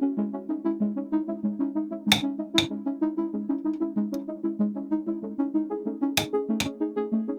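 Background music: quick, evenly repeated synthesizer or keyboard notes, with two pairs of sharp percussive hits, about two seconds in and about six seconds in.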